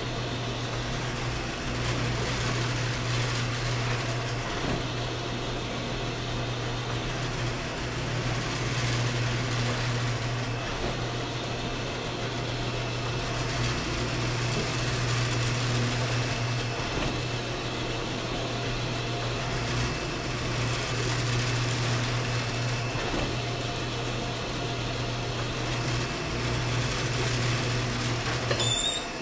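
A machine motor running with a steady low hum and an even hiss. It cuts off suddenly near the end.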